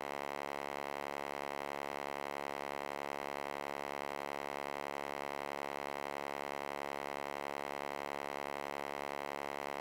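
A steady buzzing drone holding one pitch, with many even overtones and a fast flutter in its loudness, unchanging.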